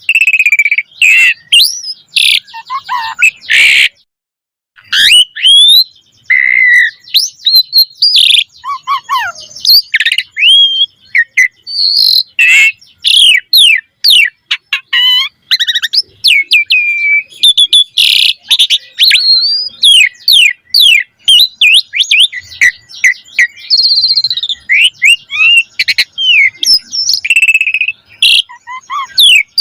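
Asian pied starling (jalak suren) singing a long, varied song. It strings together sliding whistles, chirps and fast chattering notes, a repertoire rich in learned phrases (isian). There is a short pause about four seconds in.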